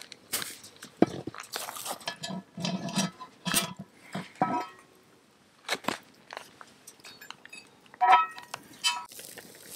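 Wood campfire crackling and popping in irregular sharp cracks, mixed with knocks and scrapes of a pot and grill grate being handled over the coals; two ringing metallic clinks come near the end.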